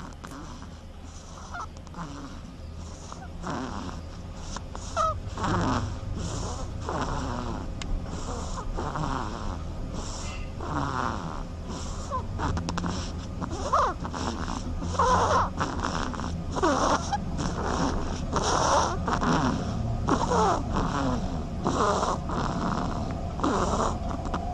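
A duckling snoring: short raspy breaths repeat about once a second, over a steady low hum.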